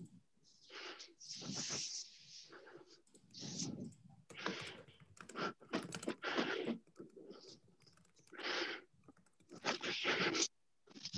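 Irregular bursts of crunching and rattling as a ground corn and protein pellet feed mix is shaken out of a bucket into a wooden cattle feeder.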